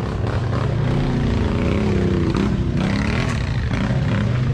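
Side-by-side UTV engine running under load, its pitch rising and falling as the throttle is worked through the middle, with tyres sloshing through muddy water.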